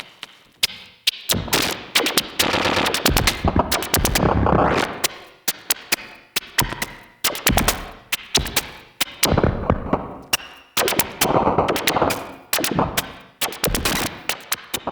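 Bugbrand Chirper modular synthesizer playing glitchy experimental electronic music. Four modulated voices switch at the same rate, giving a jumping 'hiccup' rhythm: irregular bursts of sharp crackling clicks and buzzing tones, each dying away within about a second, broken up by a Microcosm glitch effect.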